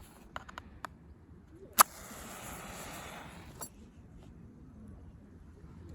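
A few small handling clicks, then a FIRE LIGHTERS match-type fire starter struck once with a sharp scrape. It flares into a steady hiss for about two seconds before settling.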